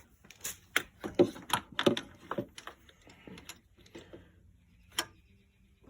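Metal socket-wrench parts clicking and clinking as a spark plug socket is fitted onto a ratchet and extension. There is a quick run of light clicks over the first couple of seconds, a few more after that, and a single click near the end.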